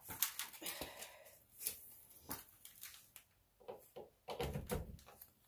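Irregular knocks, clunks and rustles of the sump pump's power cord and fittings being handled, with a heavier low thump about four and a half seconds in. No pump motor runs.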